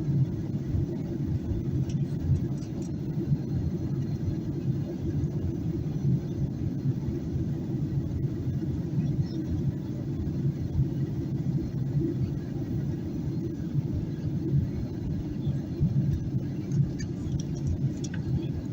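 Steady cabin rumble of a Boeing 737-800 in descent, heard inside the cabin: the engines and rushing air make a low, even drone.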